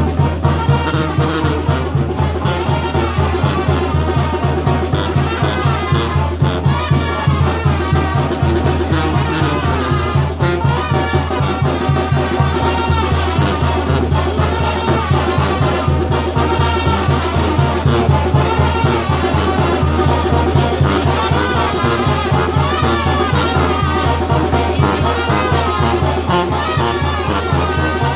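Brass band music with a quick, steady beat, trumpets and trombones playing a dance tune.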